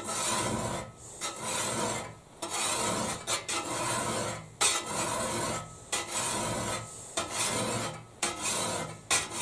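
Flat file rasping across the steel edge of a fire shovel in slow, even strokes, about one a second, sharpening the bevel.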